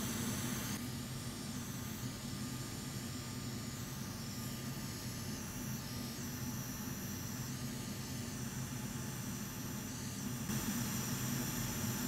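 Hot air rework station blowing as it heats a circuit board from beneath to desolder a connector, together with a fume extractor fan running: a steady airy hiss over a low hum. The hiss eases a little after about a second and picks up again near the end.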